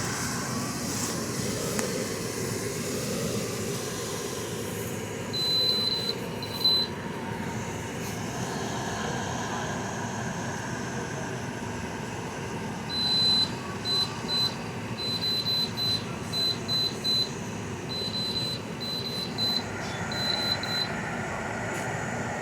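GE dehumidifier running at maximum fan speed, a steady hum and rush of air with its rotary compressor working underneath. Short high-pitched electronic beeps cut in, a couple about six seconds in and then a string of irregular ones for most of the second half.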